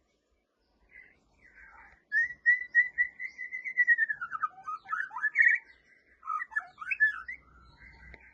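White-rumped shama (murai batu) singing: a couple of faint notes, then about two seconds in a long clear whistle held near one pitch, followed by quick varied fluty phrases sliding up and down.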